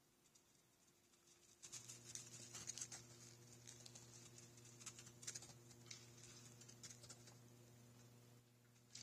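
Faint, irregular patter of quick ticks from deer hooves running across the yard. Under it, a steady electrical hum starts about one and a half seconds in, as the security camera's light switches on.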